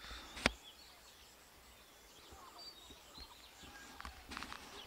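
Faint open-air background with a few faint bird chirps, broken by a single sharp click about half a second in.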